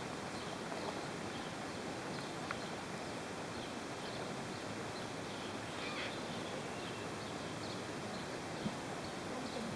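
Steady outdoor background noise with no clear source standing out, broken only by a few faint short high chirps or ticks.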